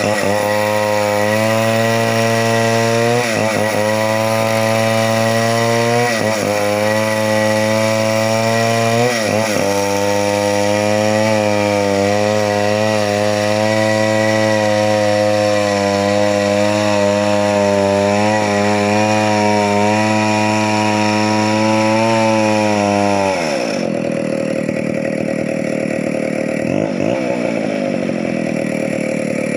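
Chainsaw engine running at high revs and cutting wood. Its pitch sags briefly three times in the first ten seconds, then holds steady. About 24 seconds in the engine drops back to a lower idle.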